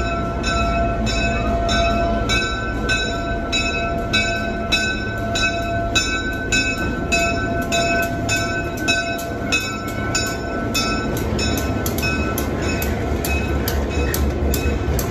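Diesel locomotive bell ringing steadily at about two strokes a second as Norfolk & Western diesel locomotive 620 approaches and rolls slowly past. A low engine rumble comes in about eleven seconds in as the locomotive passes close by.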